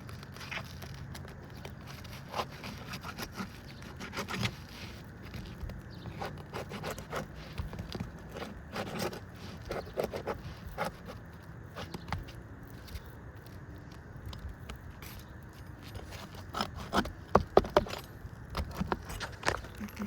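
Roof shingles being pried loose and their nails worked out: irregular scraping with scattered sharp clicks and knocks, coming fastest and loudest near the end.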